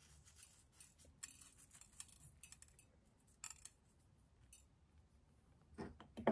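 Faint scattered light ticks and rustles as pinches of black sesame seeds are sprinkled by hand onto avocado toast on a plate.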